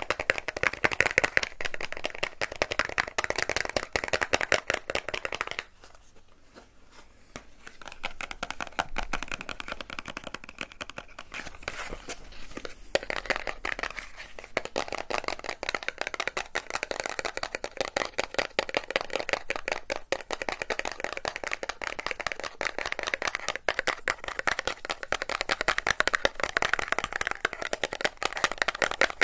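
Close-miked ASMR trigger sounds: a fast, dense crackling and rustling like crinkling or scratching right at the microphone. It drops away for about two seconds near six seconds in, then picks up again.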